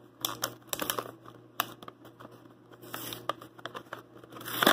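Paper and plastic packaging crinkling and tearing as it is pulled off a small plastic puzzle, in irregular rustles and light clicks, with a louder rustle near the end.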